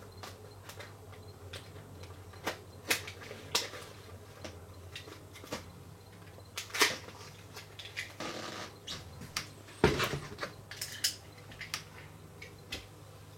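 Cardboard box and packaging being cut open and handled: scattered taps and clicks, a short scraping rustle about eight seconds in, and a sharper knock about ten seconds in, over a steady low hum.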